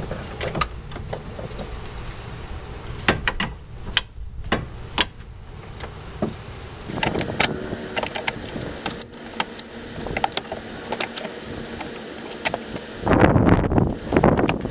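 Scattered metallic clinks and knocks as a BMW 530i front strut is worked into the wheel-hub knuckle, with a loud rush of noise about a second long near the end.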